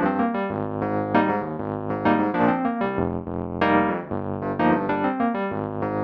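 Yamaha P-125A digital piano being played: a flowing stream of notes and chords, several a second, over held bass notes.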